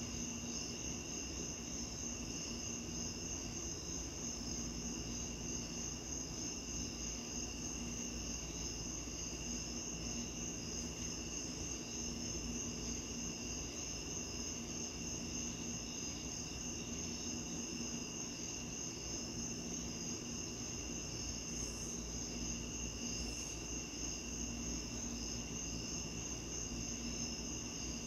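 Crickets trilling steadily in a continuous high-pitched, finely pulsing chorus, over a steady low background noise.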